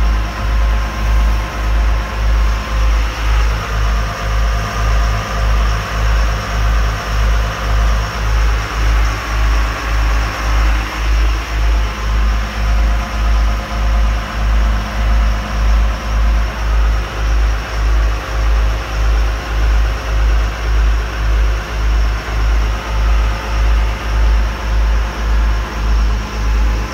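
A motorboat's engine running steadily under way, heard from the helm behind the windshield: a constant drone with a low throb that pulses about twice a second, over the rush of water and wind.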